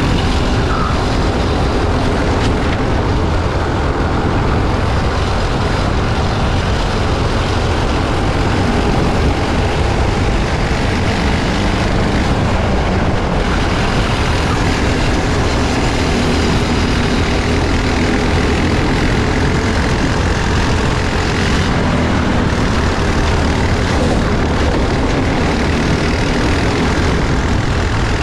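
Onboard sound of a Briggs & Stratton LO206 single-cylinder four-stroke kart engine running at racing speed.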